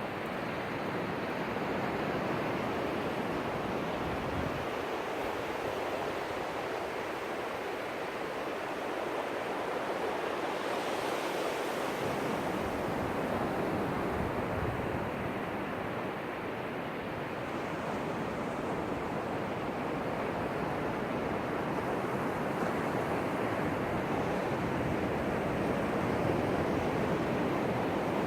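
Ocean surf: waves breaking and washing up the beach in a steady rushing wash that swells and eases gently.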